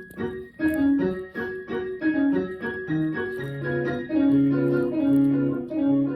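Instrumental music on a keyboard instrument, a flowing run of notes over held low bass notes.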